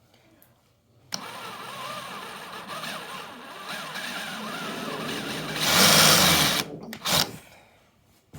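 Cordless drill motor starting about a second in and running with a wavering pitch, loudest and harshest for about a second near the end, then cutting off and giving one short burst after it.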